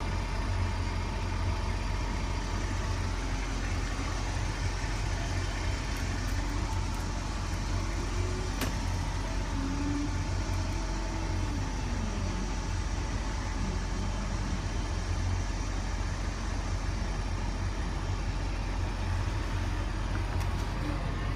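Nova Bus LFS transit bus idling with a steady low engine hum; a fainter tone rises and falls briefly in the middle.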